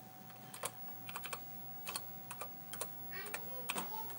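Keystrokes on a TI-99/4A Home Computer keyboard: irregular clicks, a few a second, as a command is typed. A faint steady tone runs underneath.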